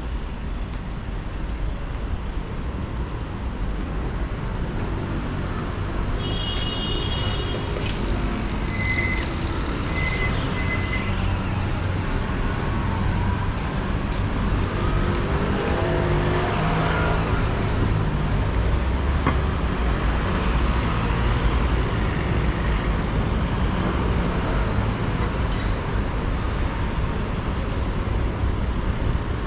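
City street traffic: a steady rumble of cars and buses passing, with a few short high beeps partway through.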